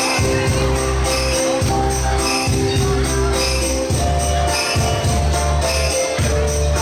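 Dance music with a heavy pulsing bass line, sustained melody notes and jingling bell-like percussion.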